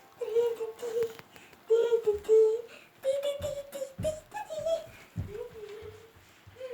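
A person humming a short wordless tune in a run of held notes that step up and down in pitch, with a couple of soft low knocks in between.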